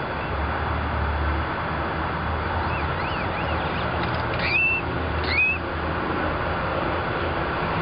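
Crow giving squeaky calls that mimic a shopping cart's squeaking wheel: a few faint arching squeaks, then two louder squeaks that rise and level off, under a second apart, over steady traffic rumble.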